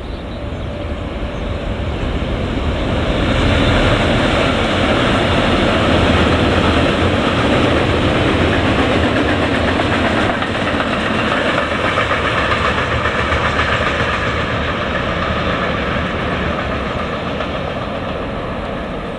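Freight train hauled by an electric locomotive passing, with a long string of open and covered wagons running on the rails. The sound builds over the first few seconds, stays steady while the wagons pass, and fades near the end.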